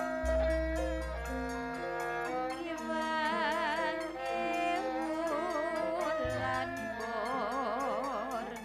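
Javanese gamelan playing: metallophones step through a sustained melody while a female pesinden sings wavering, ornamented lines over it. A deep gong stroke booms shortly after the start, and a second lower stroke sounds about six seconds in.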